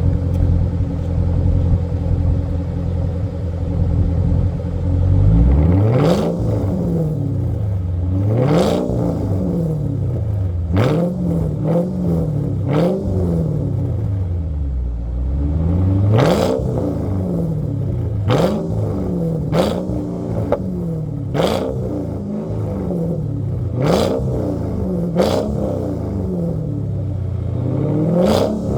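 2001 Mercedes-Benz CL 500's 5.0-litre V8 idling, then revved about a dozen times from about five seconds in, each quick rev rising and falling back to idle.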